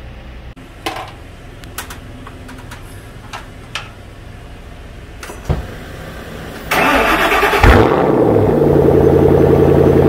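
Ford Shelby GT500's supercharged V8, with an aftermarket VMP supercharger, is started. A few light clicks and a thump come first. About two-thirds of the way in the starter cranks, the engine catches with a loud flare, and it settles into a steady, loud idle.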